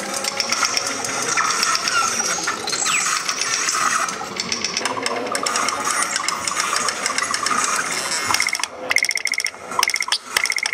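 Experimental sound from a transducer-driven sound-art installation: a dense texture of clicks and rattling, buzzing chatter, which breaks into rapid stuttering pulses near the end.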